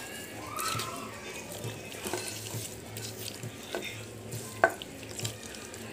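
A hand squishing and stirring raw chicken leg pieces through wet masala paste in a metal bowl: soft wet rustling, with a few sharp clicks against the bowl, the loudest about three-quarters of the way in.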